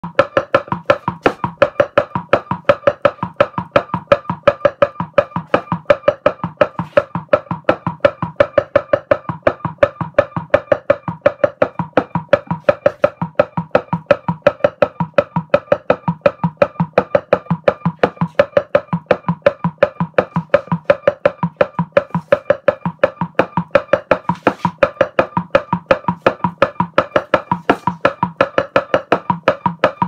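Filtered electronic oscillator driven directly by the amplified bioelectrical voltage of oyster mushroom mycelium: a steady train of short pitched pulses, about four a second. Its pitch and rhythm follow the fluctuations of the mycelium's bioelectrical field as it digests paper.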